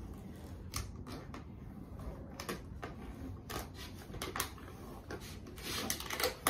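Adhesive vinyl wrap being peeled off a car door by hand: irregular crackling clicks as the glue lets go, thickening into a denser crackle near the end.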